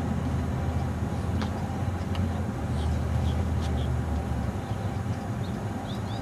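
Steady low outdoor rumble that eases off about four and a half seconds in, with a few faint clicks and short high chirps of small birds, more of them near the end.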